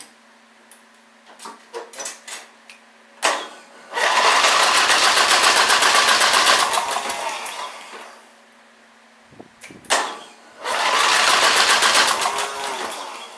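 Riding mower's single-cylinder engine cranked by its electric starter in two bursts of fast, even chugging, the first about four seconds long and the second about three, each slowing as it trails off. A start attempt after fuel system work, to see whether it will start without ether.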